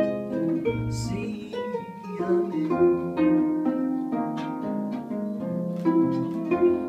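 Instrumental blues passage played on plucked strings: a stream of single picked notes over a walking bass line, without vocals.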